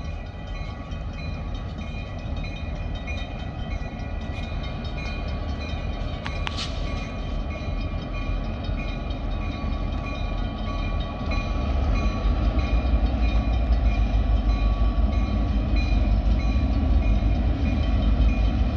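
EMD diesel freight locomotives approaching at slow speed, their engine rumble growing louder about halfway through, with steady high-pitched tones above it.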